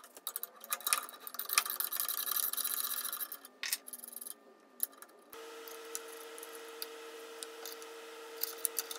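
Metal clicks and scraping of a pliers wrench turning a hex bolt on a table saw's fence head. After a break about five seconds in there is a steady hum with a few light metal clicks as the bracket is handled.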